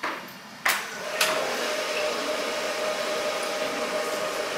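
Glassblowing heating equipment starting up. After a couple of sharp knocks about a second in, a steady rushing roar with a constant hum sets in.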